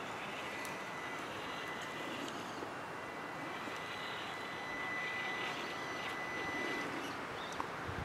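Faint, steady outdoor background drone, an even hiss-like noise with a thin high whine running through it.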